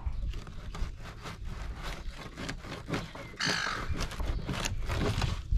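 Filleting knife scraping and sawing along the skin of a nannygai fillet in quick repeated strokes as the skin is worked off. A harsh bird call comes in about three and a half seconds in.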